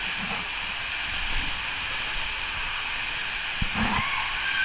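Water rushing steadily down an enclosed water slide, heard as an even hiss. A brief pitched sound that rises and falls, like a short cry, comes near the end.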